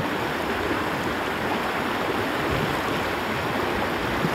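River water running with a steady rushing.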